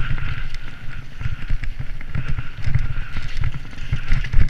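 Mountain bike descending a dirt forest trail, heard from a camera on the rider: wind buffeting the microphone as a heavy rumble, over tyre noise and a continual clatter of the chain and bike rattling over roots and bumps.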